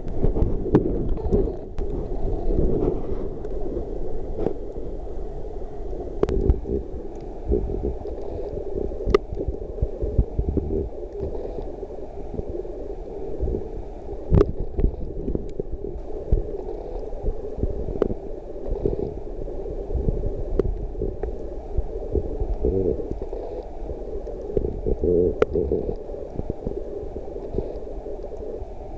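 Muffled underwater rumble and water movement heard through a submerged camera's housing, with occasional sharp clicks.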